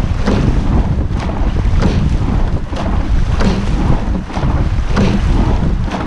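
Wind buffeting the boat-mounted camera microphone as a rowing shell moves at race pace, with water rushing along the hull. Short knocks and splashes from the oars recur through the rowing strokes.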